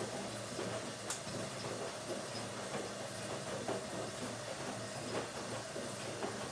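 Washing machine running steadily: a low hum with irregular small knocks and rattles, and one sharper click about a second in.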